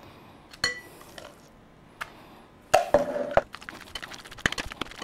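Mayonnaise being scooped from a jar into a glass mixing bowl, with a few sharp clicks and a louder clunk with a short ring near the middle. Then a spatula stirring the thick meat salad in the glass bowl, with rapid small ticks and scrapes against the glass.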